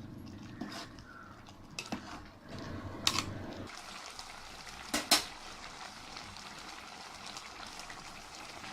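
A spoon knocking against a cooking pan a few times while the aviyal is stirred, over a faint steady hiss; the two loudest knocks come about three and five seconds in.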